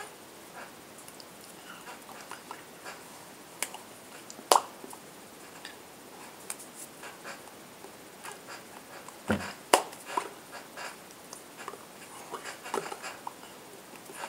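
Scattered soft taps, clicks and slaps of hands against body and clothing while signing, with a couple of sharper knocks about four and a half and nine and a half seconds in.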